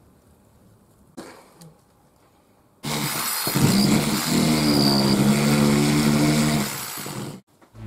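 A power saw plunge-cutting through a thin wooden wall panel. After a short knock, the motor starts about three seconds in and runs with a steady pitched drone, rising a little as it gets up to speed, then stops suddenly about a second before the end.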